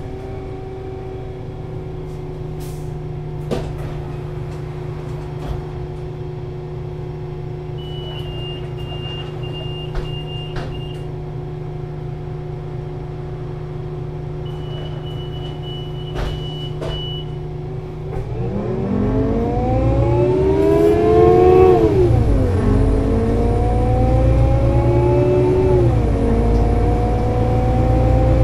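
Solaris Urbino 18 IV articulated bus's DAF diesel engine idling steadily, with a few knocks and two spells of a high tone lasting a few seconds each. About eighteen seconds in it pulls away: the engine's pitch rises and drops back twice as the Voith Diwa 6 automatic gearbox shifts up, then rises again.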